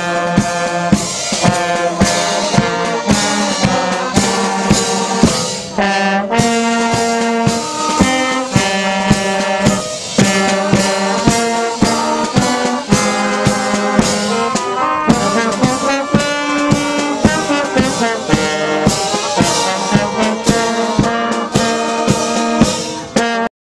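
Wind band of trumpets, clarinets and flute playing a tune over a steady beat of about two strikes a second; the music cuts off suddenly near the end.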